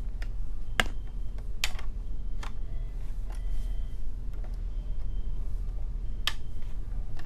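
A few sharp, scattered clicks of open-end wrenches against the metal nuts of a dental unit's handpiece cable fitting as the nuts are turned loose, over a steady low hum.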